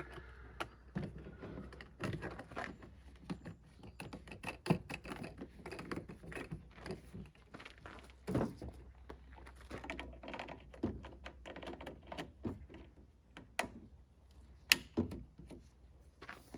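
Objects being handled and set down: irregular clicks, knocks and soft thunks, with one sharp click near the end as the loudest.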